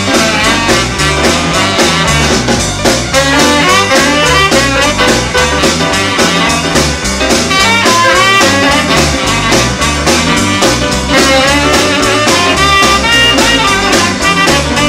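Live rhythm-and-blues band playing an instrumental passage: a steady boogie beat on drums and bass with saxophone and piano lines over it.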